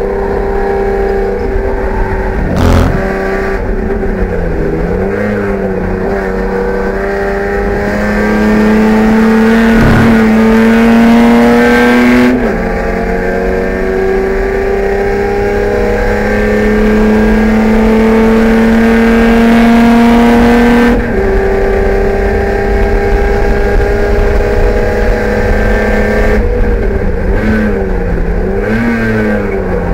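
BMW E30 race car engine heard from inside the cabin, pulling hard through the gears. Its note climbs steadily and drops sharply at two upshifts, about 12 and 21 seconds in. Near the end the pitch dips and rises in waves as the driver brakes and blips through downshifts.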